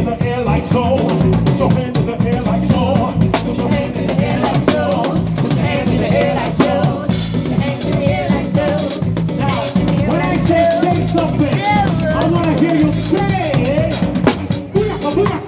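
Live band playing an upbeat Jamaican-style groove, drum kit with rimshots and bass drum driving it, with a voice or lead line over the top.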